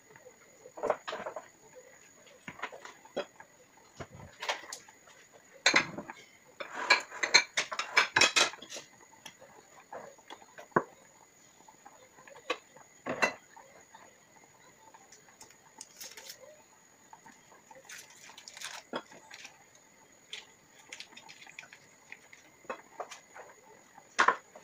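Kitchenware clinking and knocking on a worktop as bowls, jars and utensils are handled: scattered clicks and knocks, with a busy run of rattling clinks about six to eight seconds in and a sharp knock near the end.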